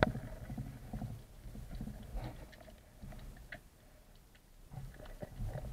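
Sharp underwater crack of a Pathos Laser carbon inverted-roller speargun firing, right at the start. It is followed by low underwater rumbling and scattered faint clicks and knocks.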